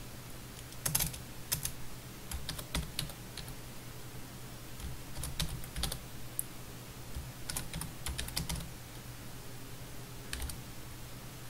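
Typing on a computer keyboard: short runs of keystrokes with pauses between them, over a faint steady low hum.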